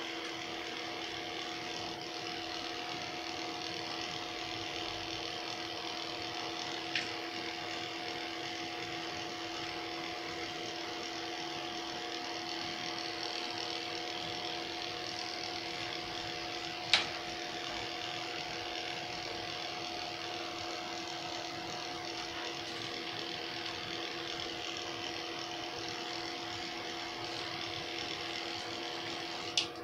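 Corded electric pet clippers running steadily, a constant motor hum with blade buzz as they shave a dog's coat. Two short sharp clicks break in, about seven and seventeen seconds in.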